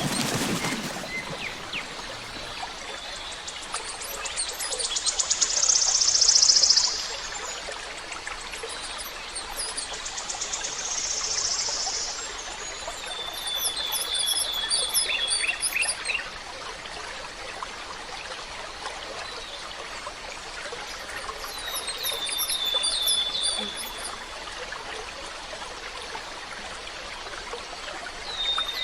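Forest stream trickling and babbling steadily, with birds singing over it: a high, rapid buzzing trill twice in the first half, the loudest sound, and a songbird repeating a phrase of quick high notes that ends on a long held whistle, three times about eight seconds apart.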